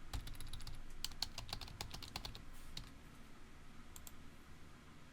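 Computer keyboard being typed on: a quick run of key clicks for about three seconds, then two more taps about four seconds in.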